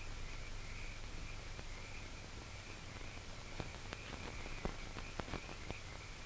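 Worn old-film soundtrack between lines of dialogue: a steady hum and hiss with a wavering high-pitched tone, and a run of faint clicks in the second half.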